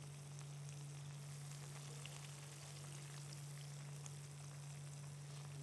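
Faint sizzling of bell-pepper rings in a frying pan, with small scattered pops, over a steady low hum.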